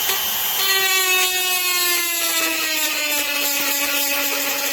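Electric rotary tool running at its lowest speed setting, its bit pressed into a plastic bottle. The motor's whine drops in pitch about half a second in and stays lower as the bit bites, loading the motor, and it blows a hole through the plastic.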